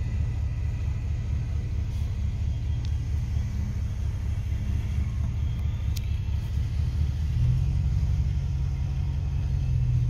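Steady low engine rumble heard from inside a car, growing a little louder with a stronger hum about seven and a half seconds in.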